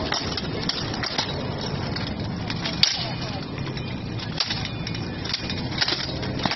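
Armoured combat: steel weapons striking plate armour and each other, a string of irregular sharp clanks with the loudest blow about three seconds in, over the rattle of moving armour.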